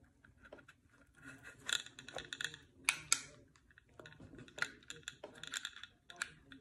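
Metallic clicks and rattling from an HK P30 pistol's parts as it is handled and fitted back together in gloved hands. There are two bursts of rattling, with two sharp clicks between them about three seconds in.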